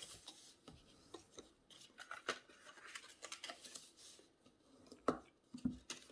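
Cardstock being folded and creased along its score lines with a bone folder: soft, irregular paper scrapes and crackles, with a couple of light knocks about five seconds in.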